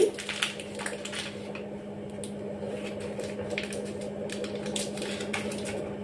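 Butter wrapper paper crinkling, with scattered light clicks and taps as pieces of butter are pinched off into a glass bowl, over a steady low hum.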